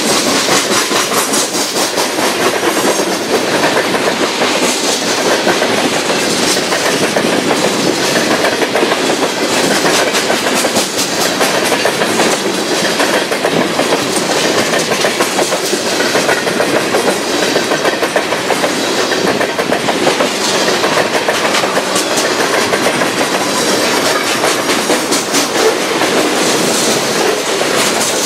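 Freight train cars rolling past: a steady wheel-on-rail rumble with a rapid, continuous clickety-clack of wheels over the rail joints.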